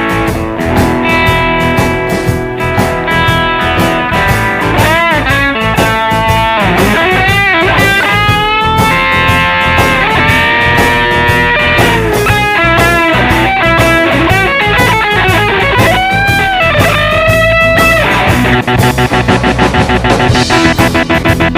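Electric guitar played through a BOSS DD-8 digital delay to imitate a helicopter: a fast, even chopping of repeating echoes, with notes swooping up and down in pitch over it, and the chop getting denser near the end.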